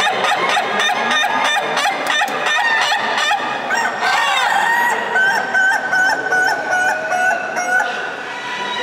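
Ayam ketawa (laughing chicken) roosters crowing, their crows long runs of quick stuttering notes like laughter, several overlapping. About five seconds in, one long stuttering crow stands out for about three seconds.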